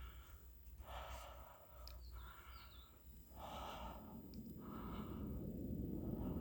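A hiker breathing heavily while walking, with a breathy hiss about every second and a half.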